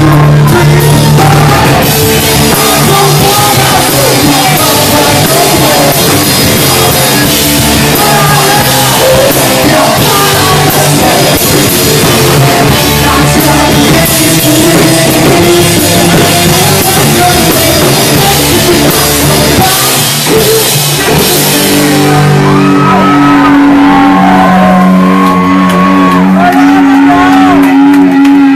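Rock band playing live, very loud: drum kit, electric guitar and shouted singing. About 22 seconds in the cymbal wash drops away, leaving held guitar notes under the voice.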